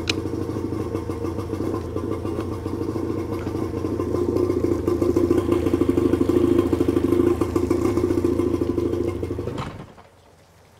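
1992 Johnson 48 hp two-stroke outboard running, with a sharp click at the start. It gets louder a few seconds in, then dies suddenly near the end, stalling because it is not running right.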